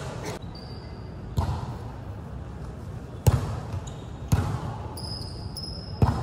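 A volleyball being struck four times during rallies, each hit a sharp slap that echoes in a large gymnasium.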